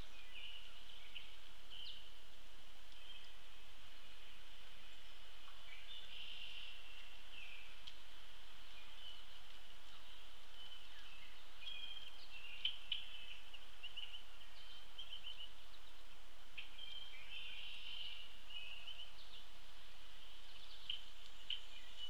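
Wild birds chirping and trilling in a high, continuous chorus over a steady outdoor hiss, with two sharp taps about halfway through.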